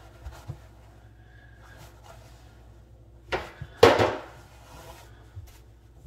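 Quiet handling sounds as a wad of paper towel is pressed into a dishwasher's float-switch well to soak up the standing water. Two short scuffing knocks come about three and four seconds in, the second the louder.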